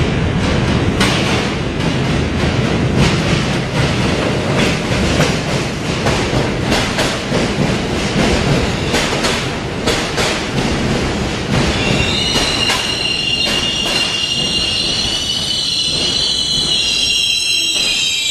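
New York City subway train running, its wheels clicking over rail joints. About two-thirds of the way through, the steel wheels start a loud, high-pitched squeal of several tones held together, which sags slightly in pitch near the end.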